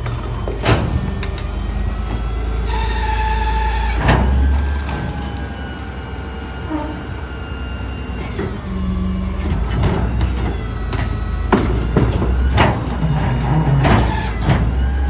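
McNeilus rear-load garbage truck on its natural-gas engine, rumbling steadily while its hydraulics whine, with repeated metal clanks and bangs from the cart tipper and hopper. A burst of air hiss about three seconds in ends in a loud clank.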